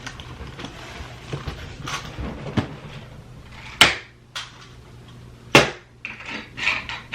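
Plastic Rubik's cubes being handled and set down on a hard surface: a few scattered clacks and knocks, the two loudest about four and five and a half seconds in.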